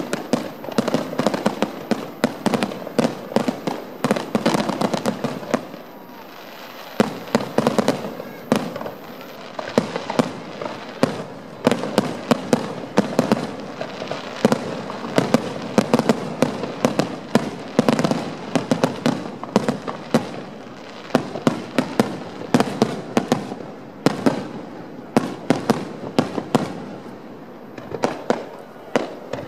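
Aerial fireworks shells bursting in quick succession: many sharp bangs layered with crackling, easing off briefly about six seconds in and again near the end.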